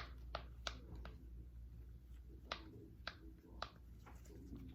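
Silicone pop-it fidget toy being pressed, its bubbles giving short, sharp pops: four in quick succession, a pause, then three more.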